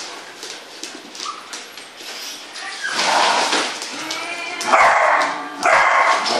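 Young dogs barking in play, with three loud barks in the second half.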